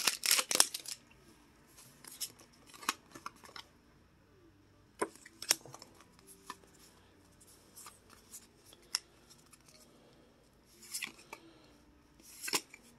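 Foil booster-pack wrapper crinkling as it is pulled open for about the first second, then Pokémon trading cards being handled and slid against one another, with scattered light clicks and snaps.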